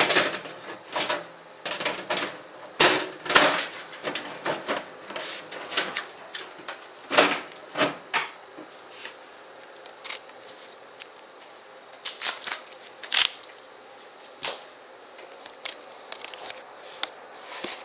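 Irregular clicks and clanks of a PC case's metal side cover being handled and fitted back into place.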